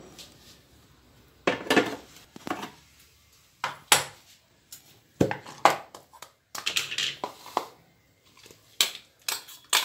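A stainless-steel mixer-grinder jar and its lid clinking and knocking as they are handled, in a string of separate sharp knocks with short gaps between them. Near the end the jar is tipped over a plastic bowl to empty out coarsely crushed green chillies.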